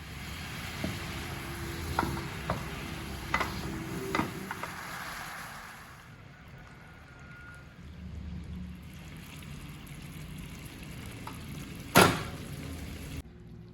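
Kitchen cooking sounds: a steady sizzling hiss with a few light utensil clicks a few seconds in, and one sharp knock near the end.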